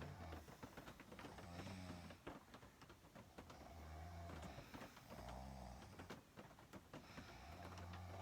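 A person snoring: low, rattling snores that come again about every two seconds, faint, with small scattered clicks between them.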